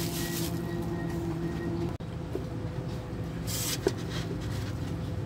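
Steady low mechanical hum, cut off briefly about two seconds in, with a short rustle of a plastic bag and a sharp click about four seconds in.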